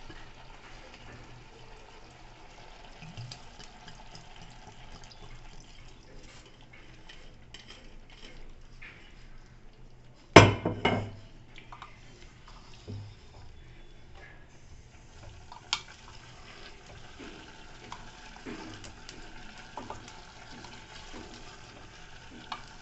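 Wooden spatula stirring chopped vegetables and mutton in an open aluminium pressure cooker, with soft scraping and small knocks against the pot. One loud clatter comes about ten seconds in.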